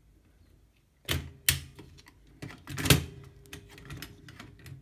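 Clicks and metal knocks of a typewriter platen being released and lifted out of its carriage. There is a short pause, then a few sharp knocks starting about a second in, the loudest near the middle, followed by lighter clicks.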